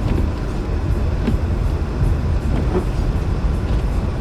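Steady low rumble of a car driving on a snowy highway, heard from inside the cabin, with a few faint knocks.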